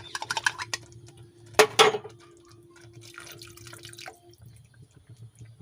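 Water poured into a pan of tomato and green chilli sauce, splashing and dripping, with two sharp metallic clanks about a second and a half in.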